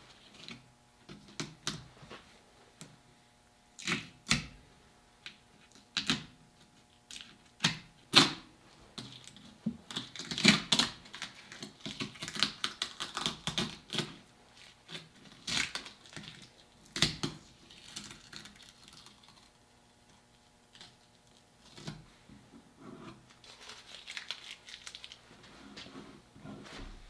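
Duct tape being peeled off a wooden shotgun stock in pieces: a series of short rips and crinkles, with a few sharp clicks of handling in between.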